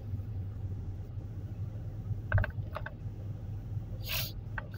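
Steady low rumble of engine and road noise inside a moving car's cabin, with a brief hiss near the end.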